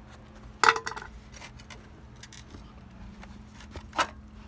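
Hard objects being handled: a few sharp clinks and knocks, the loudest less than a second in with a brief ringing, another near the end, and lighter clicks between. The circular saw is not running.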